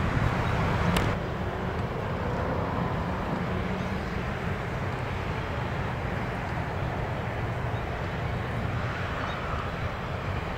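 Freight train rolling past with a heavy rumble, cut off sharply about a second in. It is followed by a steady, quieter rumble and hiss.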